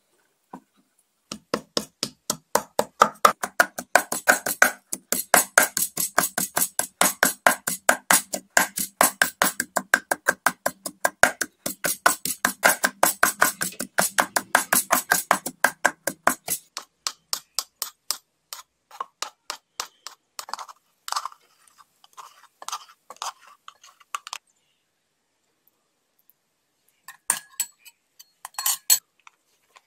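Pestle pounding garlic cloves in a stone mortar: rapid regular strikes, about five a second, for about fifteen seconds, then slower, softer taps as the paste is worked. Near the end a metal spoon clinks a few times against a glass bowl.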